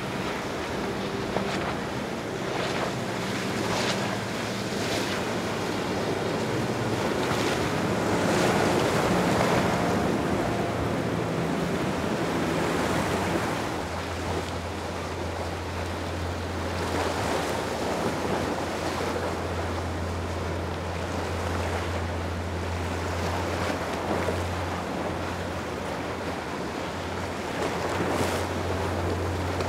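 Motorboat engine hum over wind buffeting the microphone and water washing. A deeper, louder engine hum comes in about halfway through and holds steady.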